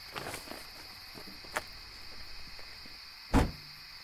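Car trunk being handled: a latch click and rustling, a sharp click about one and a half seconds in, then the trunk lid slammed shut with a loud thump near the end. Steady cricket chirping runs underneath.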